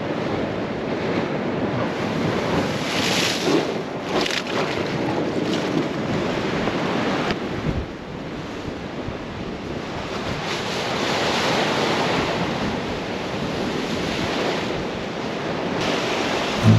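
Sea waves breaking and splashing against shore rocks, surging strongest about three seconds in and again around the eleven-to-twelve-second mark, with wind buffeting the microphone.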